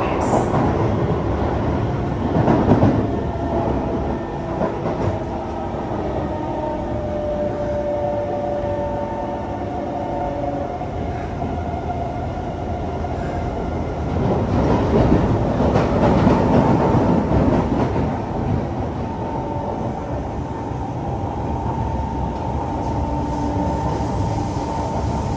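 Kawasaki C151 metro train running between stations, heard on board: a continuous rumble of wheels on rail with a faint steady motor whine. Louder rushes of rail noise come about three seconds in and again from about fifteen to eighteen seconds.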